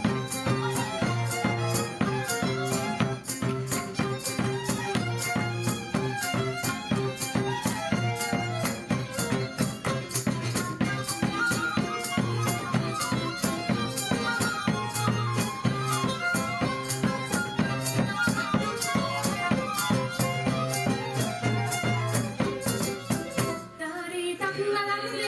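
Live Macedonian folk band playing an instrumental passage: fiddle melody over acoustic guitar and a steady beat on a frame drum. Near the end the instruments stop and unaccompanied voices begin.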